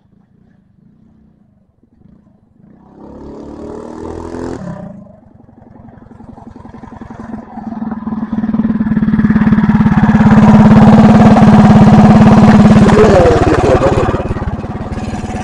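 Coleman minibike's single-cylinder engine at full throttle on a high-speed run, growing louder as it approaches and then holding a steady high-rev note. About thirteen seconds in it comes off the throttle and drops to a lower, quieter running note.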